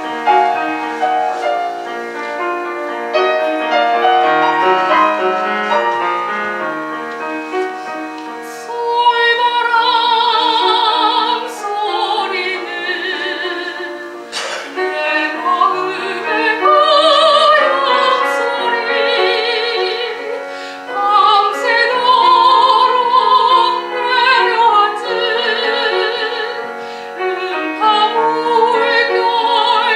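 Soprano singing a Korean art song with piano accompaniment. The piano plays alone at first, and the voice enters with vibrato about nine seconds in.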